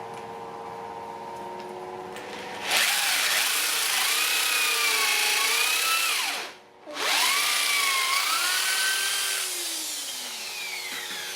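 Handheld electric power tool running, its motor pitch wavering up and down under load. It cuts out briefly a little past halfway, starts again, then winds down with a falling pitch near the end. A steady hum runs underneath.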